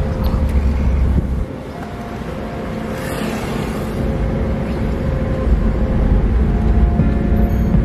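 Car engine and road noise heard from inside the cabin while driving: a steady low rumble that drops about a second and a half in, then builds again.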